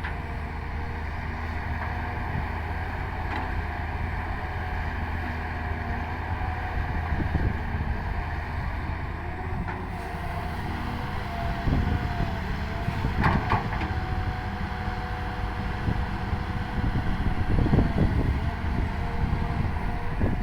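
Excavator's diesel engine running steadily under load, with a steady whine over it and a couple of metallic clanks, one a little past the middle and one near the end.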